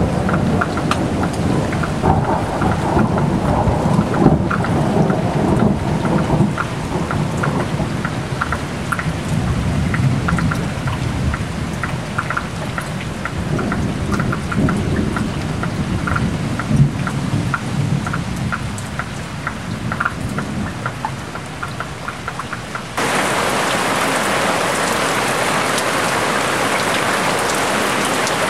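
Heavy rain falling on a waterlogged lawn and flooded walkway: drops pattering over a low rumble. About 23 seconds in the sound switches abruptly to a louder, steady hiss of the downpour.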